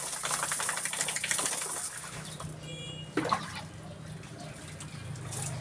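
Water splashing loudly for about two seconds, then dying down to a low background.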